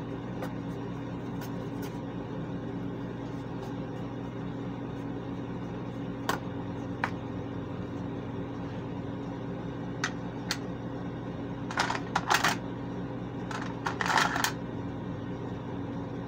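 Small makeup items being handled: a few single light clicks from about six seconds in, then two short rattling clatters near the end, over a steady low hum.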